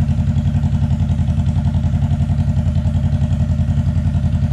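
Honda CBR sport-bike engine idling steadily on a stand with its bodywork off, an even, fast pulsing beat that holds without revving.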